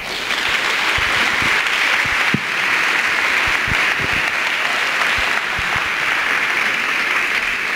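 Audience applause: many people clapping, starting suddenly and holding steady.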